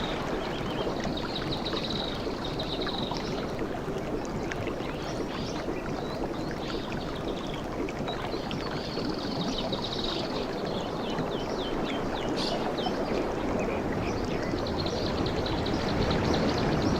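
Surf washing steadily on a tropical beach, with high chirps and trills breaking in over it a few times.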